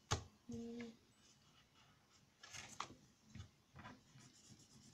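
Quiet handling of paper and craft supplies on a tabletop: a sharp click just after the start, a brief low hum, then a few soft scratchy rustles.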